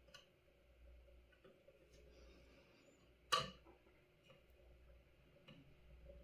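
A few faint ticks and one sharp click a little over three seconds in, from small tools and parts being handled at a soldering bench, over a low steady hum.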